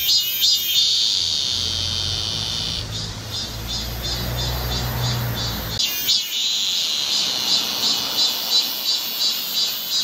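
Cicadas singing: a high, pulsing call at about three beats a second that twice swells into a sustained buzz. A low rumble runs under the song in the first half and stops abruptly about six seconds in.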